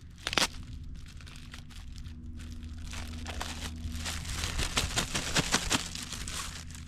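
Plastic packaging crinkling and rustling as a power-tool kit is unpacked by hand, with a sharp click shortly after the start and denser crackling in the middle, over a steady low hum.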